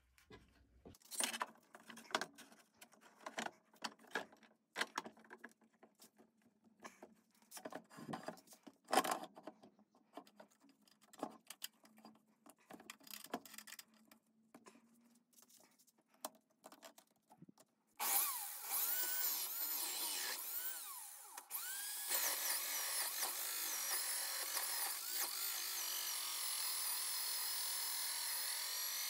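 Light, scattered clicks and knocks of handling. About 18 seconds in, a small high-speed electric power tool starts abruptly and runs steadily, its high whine wavering as it works.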